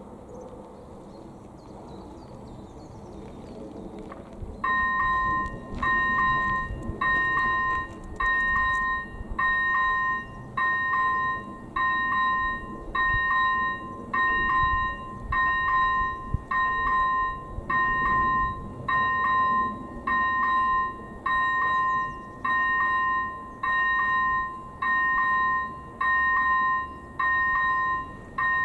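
Czech level-crossing warning: an AŽD ZV01 electronic bell starts about four and a half seconds in and sounds a two-tone ding about once a second, steady and unchanging, signalling that the crossing has been activated for an approaching train.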